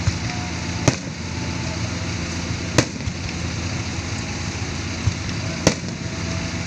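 Aerial fireworks shells bursting: three loud, sharp bangs about two to three seconds apart, with a fainter one just before the last, over a steady background din.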